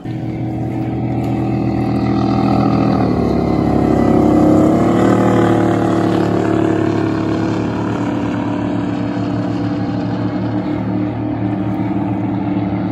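Water-ski race boat engines running flat out as a race boat passes at speed: the drone grows loudest about four seconds in, with the pitch dropping as it goes by, then carries on steady.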